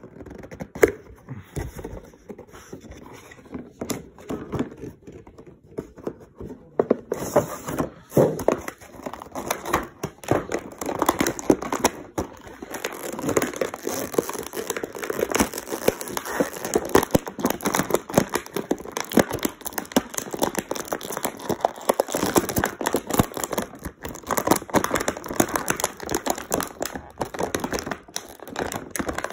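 Action-figure packaging being handled: a few scattered clicks and scrapes of the cardboard box at first, then from about seven seconds in a dense, continuous crinkling and crackling of the clear plastic bag as the figure is worked out of it.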